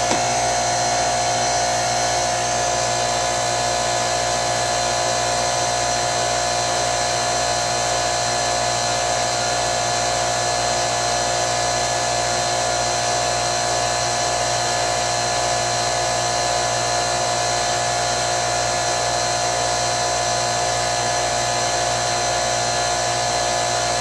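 Air-conditioning condensing unit running steadily: compressor and condenser fan give an even hum with a constant high whine.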